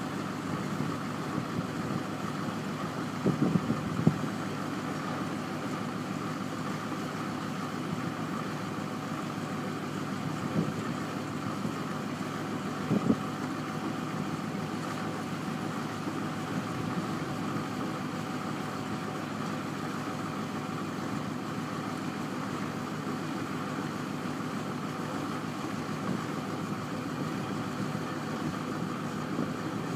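Truck's diesel engine running steadily while it powers the hydraulic hoist raising the steel end-dump box, with a few brief knocks in the first half.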